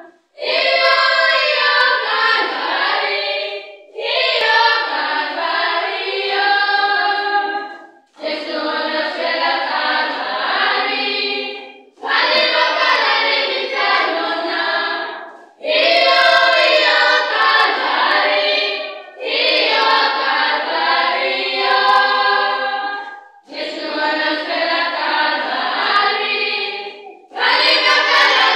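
A school Scripture Union choir singing a Christian song a cappella at practice. The voices come in phrases of about four seconds, with short breaks between them.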